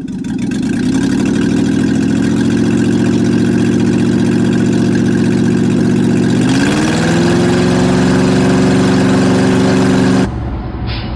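Go-kart engine running at a steady speed, then picking up to a higher steady speed about six and a half seconds in; it cuts off suddenly near the end.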